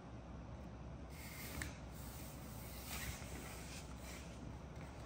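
Faint rustling of cloth and soft handling sounds, with a couple of small clicks, as hands hold a thermometer in place under a small monkey's arm.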